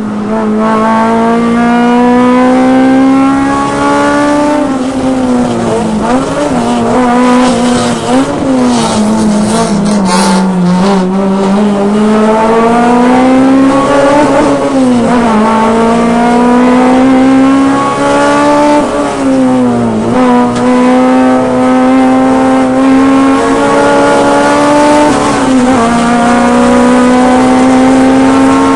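Car engine driven hard on a race track, its note climbing steadily and then dropping sharply several times as the car speeds up and slows. About ten seconds in, a burst of rushing noise joins the engine.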